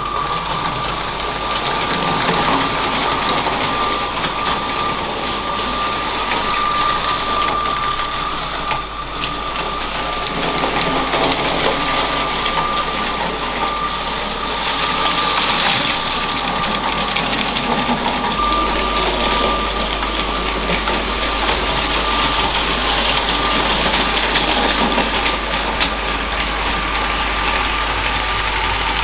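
LEGO train's small electric motor running with a steady whine, over the rattle of the wheels on plastic LEGO track.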